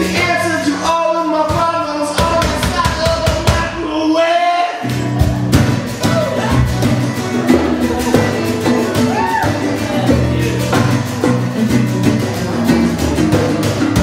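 Live acoustic guitar and singing. About five seconds in, the sound fills out with strummed guitar and percussion from a wooden box drum played with a stick and a brush.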